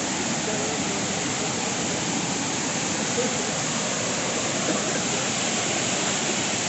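Steady roar of a waterfall close by, swollen and running hard after rain.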